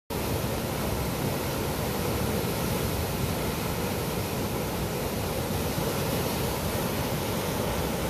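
Muddy river in flood, rushing and churning around tree trunks: a steady, unbroken roar of fast water.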